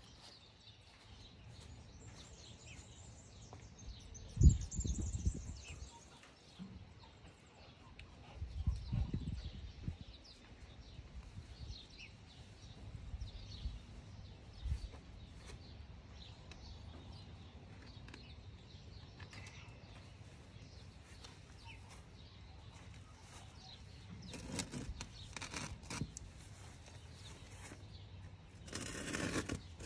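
Soil being added and worked into a plant pot by hand: intermittent scraping and rustling, with a couple of dull thumps and louder rustling near the end.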